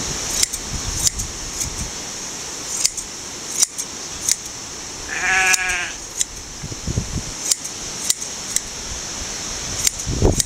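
A Shetland sheep gives one wavering bleat about halfway through. Around it, hand blade shears snipping through the fleece make sharp metal clicks, irregularly spaced, roughly one a second.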